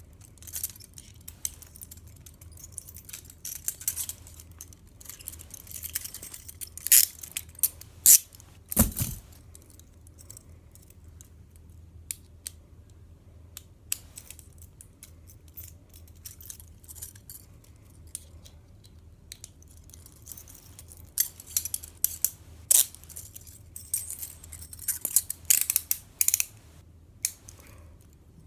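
Metal handcuffs and their key clicking and jangling as the cuffs are worked open with the key: scattered sharp clicks, a few loud ones around seven to nine seconds in, and a busy run of clicks and jingles in the last third.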